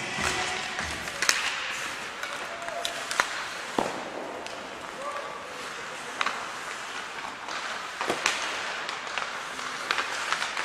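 Ice hockey in play: sharp, irregular clacks of sticks striking the puck and the puck hitting the boards, about eight in all, over the steady hiss of skates on the ice and players' shouts.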